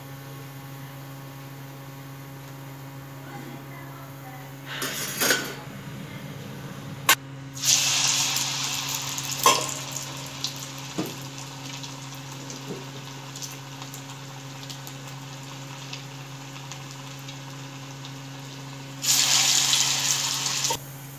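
Hot oil in a kadai sizzling loudly as carrot vada batter deep-fries, in two surges: about eight seconds in and again near the end. A sharp metal clink of the slotted spoon comes just before the first surge.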